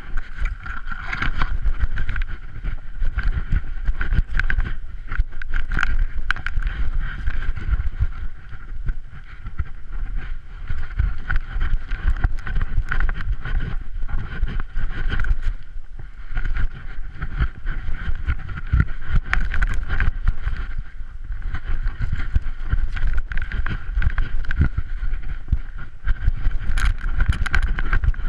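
GoPro Hero 3 Black in its housing, strapped to a running puppy's harness, jolting and knocking with the dog's quick strides. It rumbles continuously, with fur brushing over it and wind buffeting the microphone.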